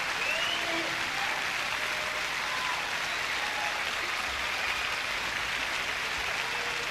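Concert audience applauding steadily, with a few faint shouts and a short rising whistle near the start.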